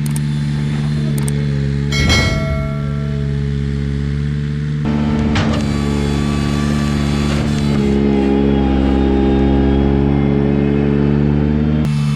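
Ventrac 4500Z compact tractor's engine running steadily, with a sharp metallic clank that rings briefly about two seconds in and another knock around five seconds in; the engine note changes, as under load, from about eight seconds.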